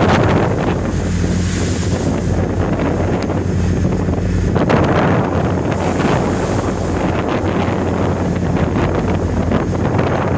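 Strong gusting wind buffeting the microphone, over the steady low drone of the ship's engine and waves washing against the hull.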